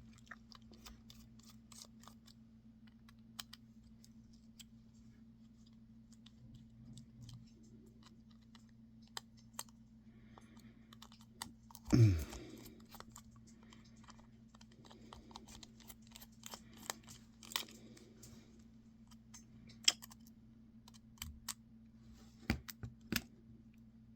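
Small hand tools clicking and tapping on cell phone parts during disassembly: scattered light ticks of screwdriver bits and plastic and metal pieces being pried apart and set down. One much louder thump about halfway through, over a faint steady low hum.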